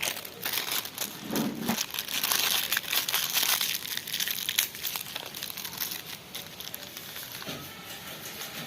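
Clear slime being squeezed and kneaded by hand, a dense crackling of small sticky pops and clicks. It starts suddenly, is loudest a couple of seconds in, and eases off in the second half.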